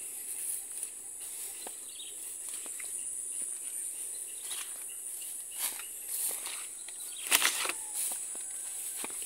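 Footsteps swishing through long grass over a steady high-pitched drone of insects, with a louder rustle of grass about seven seconds in.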